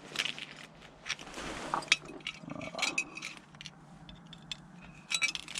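Scrap items being rummaged through by hand: irregular clinks, knocks and scrapes of hard objects being moved about, with a brief louder cluster of clatter about five seconds in.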